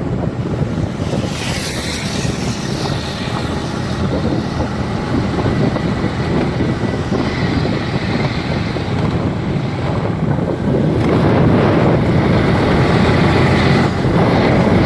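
Heavy wind noise buffeting the microphone while travelling on a road, with a vehicle's running noise underneath; it grows louder about two thirds of the way in and cuts off suddenly at the end.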